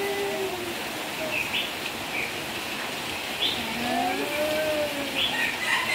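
A baby's drawn-out coos and babbling, over a steady hiss with short high bird chirps.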